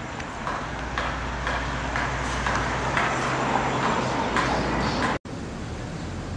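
Steady low rumble of street and traffic noise with a regular tapping about twice a second. It breaks off abruptly about five seconds in and gives way to a steadier hiss.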